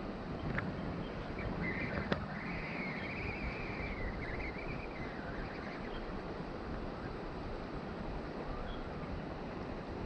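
Steady rush of creek water. A bird sings a warbling phrase for a few seconds, starting about a second and a half in, and there is a sharp click at about two seconds.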